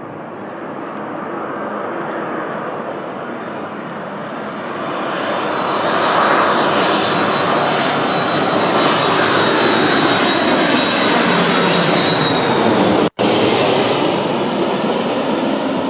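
Jet airliner engines running loud, with a steady high whine over the roar, growing louder over the first six seconds and then holding. The sound drops out completely for an instant about thirteen seconds in.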